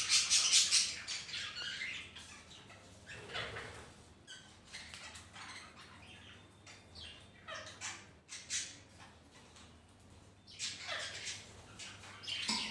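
A colony of pet budgerigars and ring-necked parakeets making scattered short squawks and chirps with quieter gaps between, and a fast rattling run of sounds in the first second.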